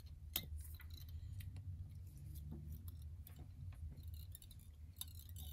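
Faint, scattered small clicks and taps of fingers handling a fly-tying vise and thread, over a low steady hum.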